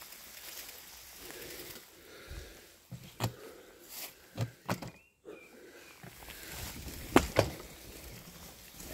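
Bicycle rolling over a leaf-covered dirt track, its tyres crunching on the ground, with several sharp knocks and rattles from the bike going over bumps. The loudest two come close together about seven seconds in.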